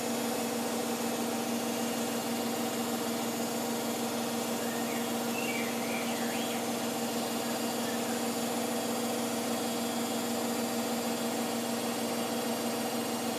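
Hoover Optima washing machine in its final spin, drum running at a steady high speed with a constant motor whine.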